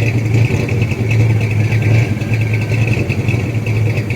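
Rebuilt engine of a 1979 Ford F-150 idling, hitting hard with every cam lobe so that the truck rocks. It is a stubborn idle problem whose cause the owner has not found.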